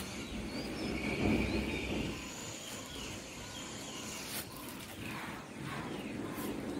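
Outdoor rural ambience: steady low background noise with a few faint bird chirps.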